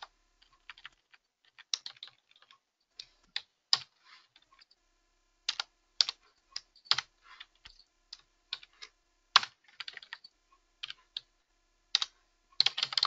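Typing on a computer keyboard: irregular keystroke clicks in short runs with brief pauses between them.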